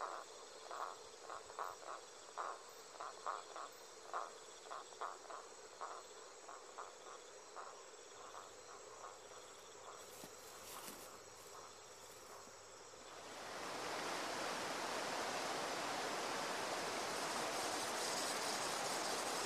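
Rainforest insect chorus. A chirping pulse repeats about twice a second over a faint, steady high whine. About 13 seconds in, a louder, even insect buzz swells up within a second and holds.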